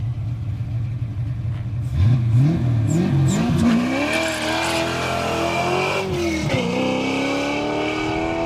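Fox-body Ford Mustang's 5.0 V8 rumbling at idle, then revved in quick blips about two seconds in. It then accelerates hard, the pitch climbing, dropping once at a gear change, and climbing again.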